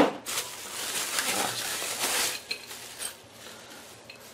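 Bubble wrap crinkling and rustling as it is pulled off a plastic junction box, loudest for the first two seconds, then a few light handling clicks.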